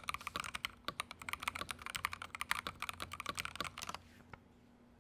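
Fast typing on a Feker IK75 gasket-mounted 75% mechanical keyboard with a steel plate and lubed MMD Cream linear switches: a quick run of key clacks that stops about four seconds in.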